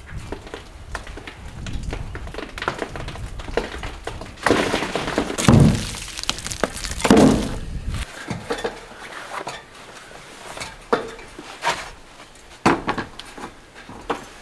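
Knocks and crashes of old masonry: loose bricks and rubble being worked off the top of a ruined wall and tumbling down, with two louder spells of clattering debris a little before the middle, then scattered single knocks.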